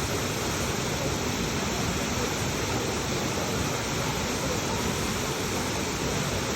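Waterfall water rushing and splashing in a steady, unbroken roar of noise.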